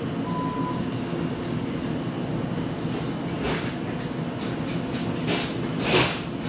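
City tram running on its rails, heard from on board: a steady low rumble of motor and wheels. A short beep comes about half a second in, and a louder rushing clatter about six seconds in.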